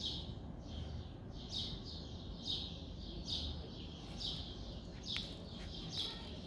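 A small bird chirping over and over, short high calls repeating every half second to a second, with one light click about five seconds in.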